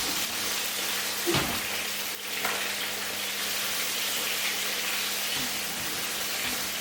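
Curry base sauce sizzling in a hot frying pan, a steady hiss, with a single knock about a second and a half in.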